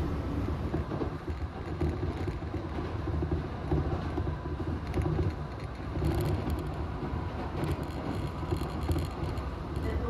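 Chichibu Railway train in motion, heard from inside the carriage: a steady low rumble of wheels on rails, with light clicks and rattles in the second half.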